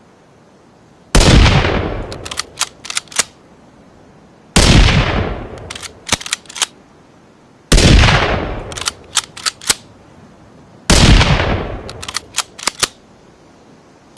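Bolt-action rifle sound effect, a blend of a Ruger American rifle and a rimfire rifle: four shots about three seconds apart, each with a long fading tail, and each followed by a quick run of three or four sharp metallic clicks, like the bolt being worked.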